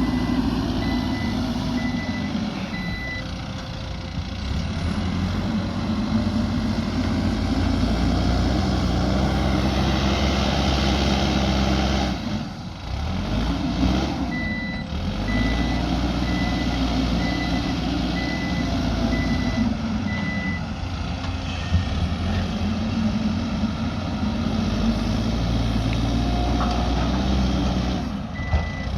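Backhoe loader's diesel engine working under load, its pitch rising and falling again and again as it revs. A reversing alarm beeps in an even series at the start, again for several seconds around the middle, and near the end.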